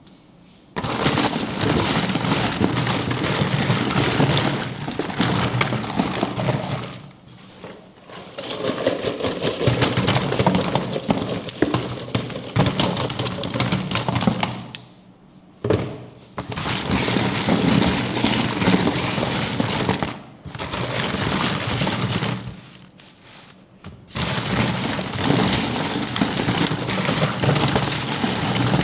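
Surprise-toy and candy packaging crinkling, crackling and tearing close to the microphone as it is opened, in several stretches of a few seconds with short pauses between.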